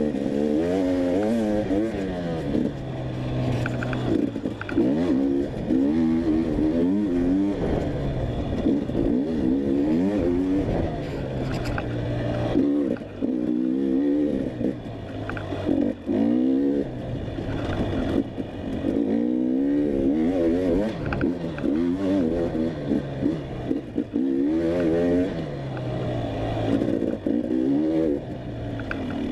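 Dirt bike engine revving hard and backing off again and again under a rider's throttle, its pitch climbing and dropping every second or two.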